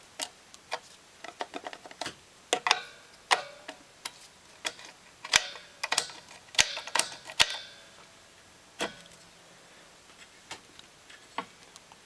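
Hands working the metal fittings and ball valve on top of a gas-bottle air tank: a string of sharp metallic clicks and clinks, some ringing briefly, thinning out to a few after about eight seconds.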